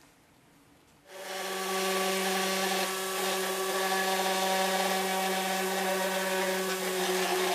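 Small battery-powered electric motor and fan of a homemade hovercraft switching on about a second in and running at a steady pitch.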